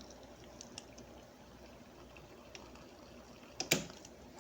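Hot water being poured in for the ramen, a faint low hiss with a few light clicks, then one sharp knock about three and a half seconds in.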